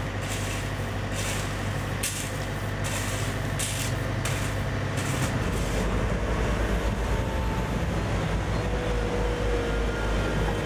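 Diesel engines of heavy Caterpillar earthmoving machines, a wheel loader and an excavator, running at work as a steady low drone. Short bursts of hiss come in the first few seconds, and the engine note turns deeper and a little louder about halfway through.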